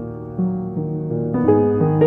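Background piano music playing slow, held chords, with new notes struck about halfway in and again near the end.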